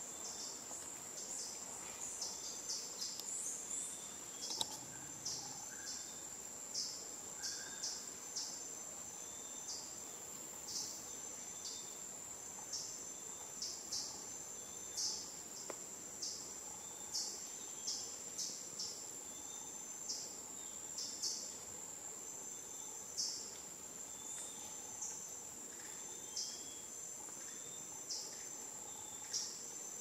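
Rainforest insects calling: one insect keeps up a steady high-pitched trill while others add short chirps about once a second, with a few quick rising chirps in the first few seconds.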